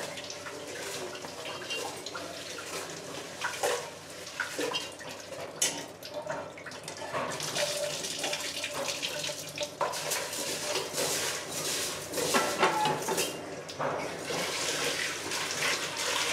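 Spatula scraping and knocking in a non-stick frying pan as fried onion-tomato masala is pushed out onto egg halves on a glass plate: irregular scraping and rustling with sharp clicks, busiest in the middle and later part.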